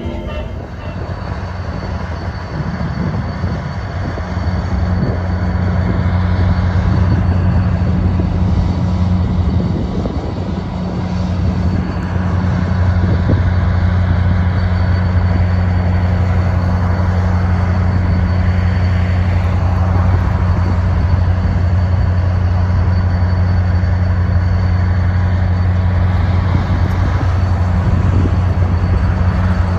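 EMD GP30 diesel locomotive's turbocharged 16-cylinder EMD 567 engine running under load with a steady low drone as it moves a string of passenger cars.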